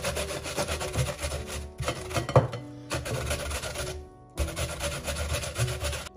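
An onion being grated on a flat stainless-steel hand grater: quick, rhythmic rasping strokes, with a brief break just past four seconds and one sharper clack about two and a half seconds in.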